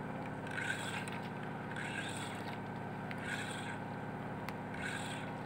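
Steady hum of the fishing boat's engine, with a soft swish about once a second as a spinning reel is cranked in against a hooked fish.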